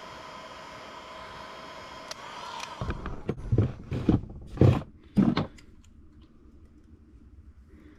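Heat gun running with a steady blowing hum and whine, switched off about two seconds in as its fan winds down. Five or six loud knocks and clunks follow over the next few seconds, then it goes quiet.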